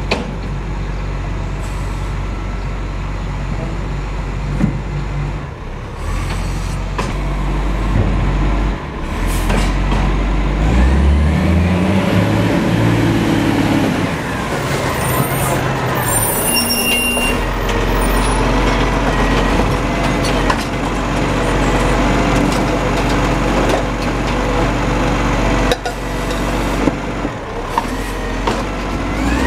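Diesel engine of a side-loading recycling truck running steadily, rising in pitch about ten seconds in as it drives up, with a short hiss of air brakes around the middle and scattered knocks from its bin-lifting arm.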